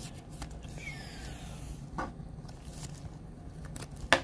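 Thin plastic card sleeve and rigid top loader rustling and scraping as a trading card is slid into them, with a few light clicks and a sharper click near the end, over a steady low hum.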